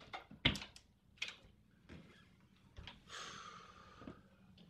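A front door being unlocked and opened: several separate clicks and knocks at the lock, the loudest about half a second in, then about a second of rushing noise as the door swings open.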